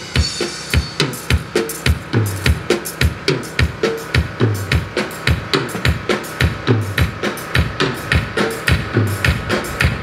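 Drum kit played in a steady, fast beat of kick drum, snare and cymbals at a band's sound check.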